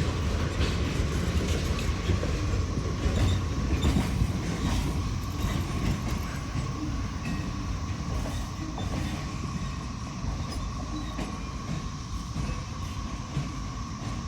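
Freight train's cars rolling slowly past, with steady rumble and scattered clicks of wheels over rail joints. The sound fades gradually as the train moves on.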